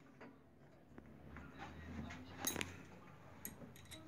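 Faint, scattered light metallic clicks and clinks of small gearbox parts being handled, the loudest about two and a half seconds in.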